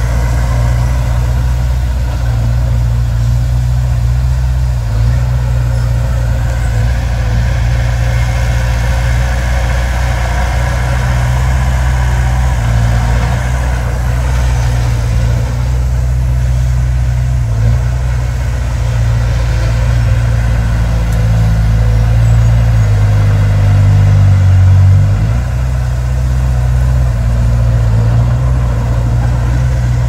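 Dump truck's diesel engine running steadily while the truck tips its load of rock and soil and lowers its bed. The engine grows a little louder after about 22 seconds and drops back suddenly near 25 seconds.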